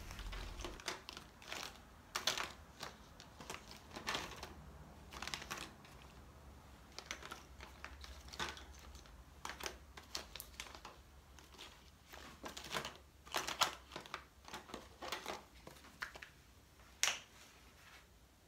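Faint, irregular taps and scratchy strokes of a paintbrush or painting tool working paint onto paper, with one sharper click near the end.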